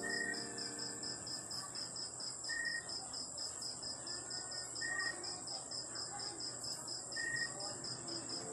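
Night insects, crickets, chirping steadily: a fast, even pulsing trill over a continuous high ringing. A short high note repeats about every two and a half seconds.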